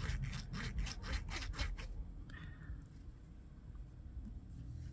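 The applicator tip of a liquid glue bottle being rubbed back and forth on card stock, about four quick rubbing strokes a second, stopping about two seconds in. The glue is not yet flowing from the tip.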